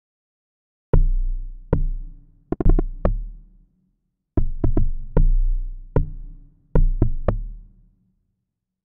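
Electronic drum-machine beat playing back from FL Studio: deep bass-drum hits with long, slowly dying low tails, in an Amapiano (sgija) style. Two short phrases with a brief gap near the middle, stopping shortly before the end.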